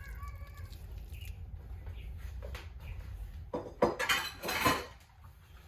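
Spoon scraping and clinking against a dish while scooping and spreading a thick chicken spread. There are a few light clicks, then a louder scrape lasting about a second and a half near the end.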